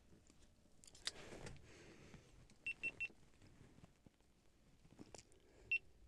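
GoPro camera beeping as it powers up after a battery change: three short high beeps in quick succession about three seconds in, then a single beep near the end. Faint clicks and handling noise come about a second in.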